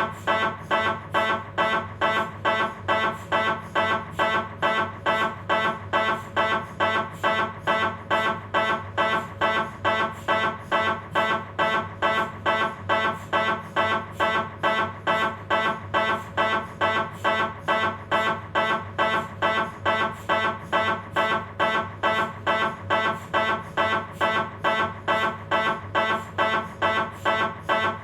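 Philips 1.5 tesla MRI scanner's gradient coils running a coronal STIR sequence: a steady, pitched buzzing pulse repeating about twice a second.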